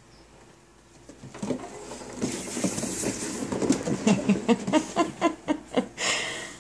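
Bengal cat running in a homemade plywood cat wheel: regular thuds of paws on the yoga-mat track with the wheel rumbling as it turns. The sound starts about a second in and builds to a steady beat of about four thuds a second.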